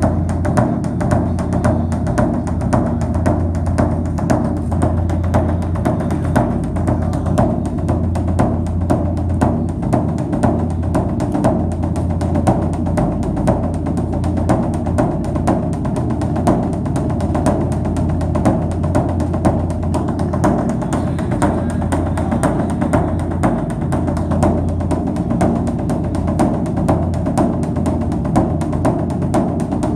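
Instrumental music with a steady, continuous drum and percussion beat.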